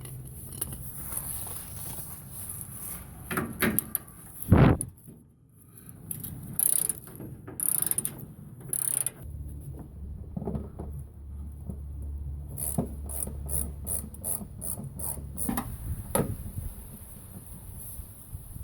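Hand tools working on bolts: scraping and clicking, one sharp knock a few seconds in, then a run of quick ratchet clicks later on.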